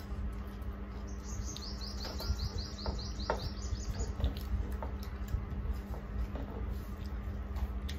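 A bird's rapid trill: a run of short, high, falling chirps, about five a second, starting about a second in and lasting about three seconds. Faint wet squelches and clicks of fingers mixing rice and curry on steel plates can be heard beneath it.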